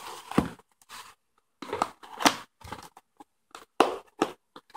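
Taped cardboard shipping box being torn open by hand: packing tape ripping and cardboard flaps scraping apart, in a run of short, irregular rips.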